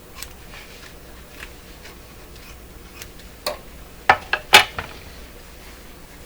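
A few faint ticks, then a quick cluster of about five sharp clicks and taps in the middle, two of them loud. These are handling sounds from the work of cutting and fitting a patch on a paper speaker cone.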